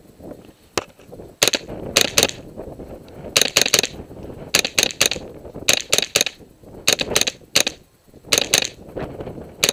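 AR-15 rifle fitted with a CMMG .22 LR conversion kit firing semi-automatic, with about twenty sharp shots in quick pairs and triples.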